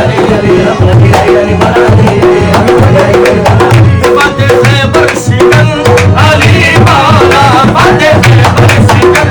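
Qawwali accompaniment between sung verses: tabla playing a steady, driving rhythm under a held harmonium melody.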